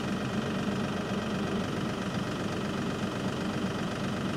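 LS MT342 compact tractor's diesel engine running steadily at idle.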